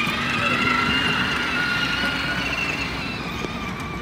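Children's battery-powered ride-on toy UTV driving past, its electric drive motors and plastic gearboxes giving a steady whine that eases down slightly near the end.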